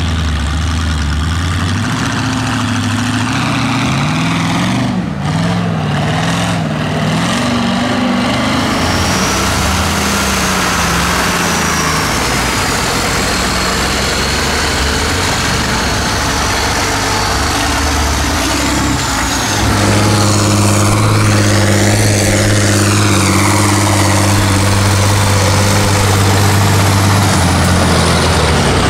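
Off-road race trucks' engines labouring through deep mud, their revs rising and falling. About two-thirds of the way in they get louder and hold steady high revs, over the wash of churning mud and water.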